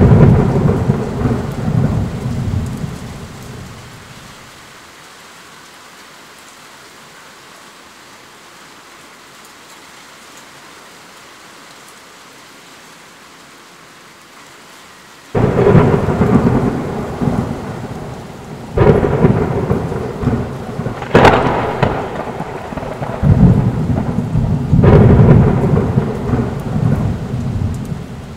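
Heavy rain falling steadily during a thunderstorm. A rumble of thunder dies away over the first few seconds, then about halfway through a sudden loud thunderclap starts a run of about five cracks and rumbles, the sharpest about two-thirds in.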